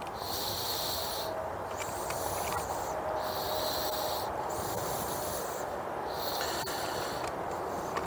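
A man breathing through his nose close to a clip-on microphone: a hissing breath about every second and a half, with a faint click near the end.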